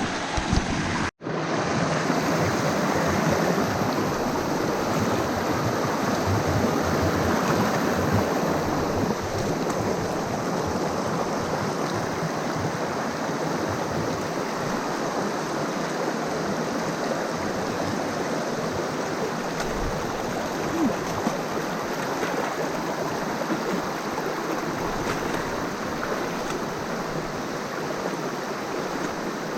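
Steady rush of fast-flowing water from a jungle river, cutting out for a moment about a second in.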